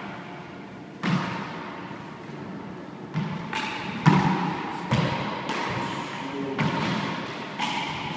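Handball rally: a rubber handball smacked by gloved hands and rebounding off the walls and floor of an indoor four-wall court, about seven sharp hits roughly a second apart, each ringing on in the hard court's echo; the loudest comes about four seconds in.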